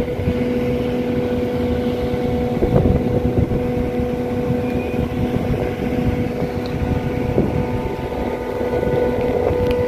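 Wind buffeting the microphone in gusts, over a steady mechanical hum.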